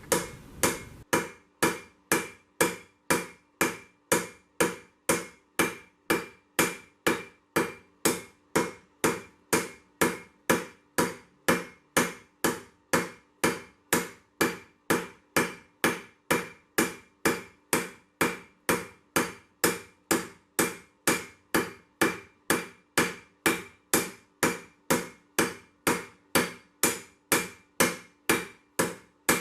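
Hammer blows on hot 1085 carbon steel over an anvil, a steady rhythm of about two strikes a second, each with a short metallic ring: the steel bar being drawn out thin.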